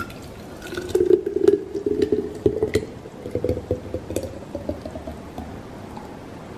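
Smoothie being poured into a glass mason jar, glugging, with a tone that rises steadily in pitch as the jar fills. The pouring stops near the end.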